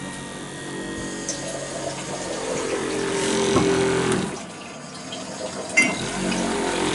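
Boat's electric fresh-water pump with brushed motor running and humming steadily while it primes, freshly rebuilt and not yet delivering water. The hum grows louder, drops off about four seconds in, and a short click comes near the end.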